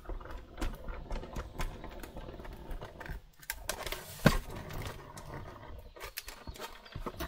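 Clicks, taps and rustling from handling a die-cutting machine's cutting plates, metal die and freshly cut paper, with one sharp click about four seconds in.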